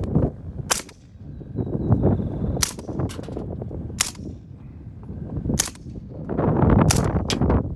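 Suppressed 9mm AR pistol firing subsonic rounds at an empty paint can: about six sharp cracks, spaced a second or more apart with the last two close together, over a steady low rumble.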